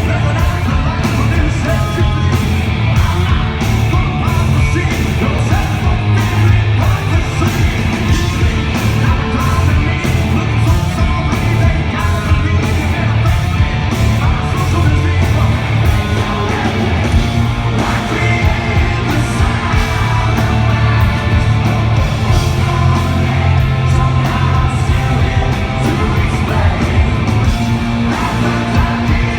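Hard rock band playing live, loud and steady, with drums, guitars and a singer.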